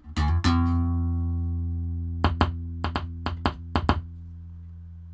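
Yamaha RBX470 active bass guitar through a bass amp: a low note plucked about a quarter second in, ringing on and slowly dying away. Between about two and four seconds in, about eight sharp clicks or crackles come through the amp over the ringing note.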